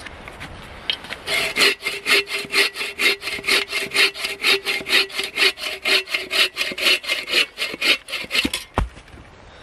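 Bow saw cutting through a mossy log with fast, even push-pull strokes. The strokes start about a second in and stop shortly before the end, followed by a single dull thump.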